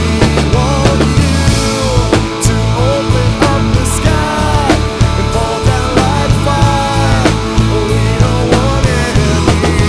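Rock-style worship song played by a full band: steady drums and bass under a lead melody that slides between notes, with no sung words.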